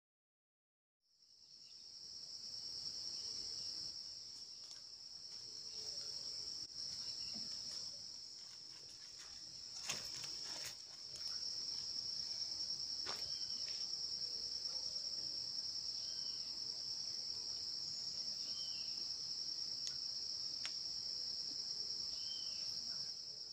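Steady high-pitched insect chorus, a continuous shrill trill that fades in about a second in and holds. A few faint short chirps sound over it.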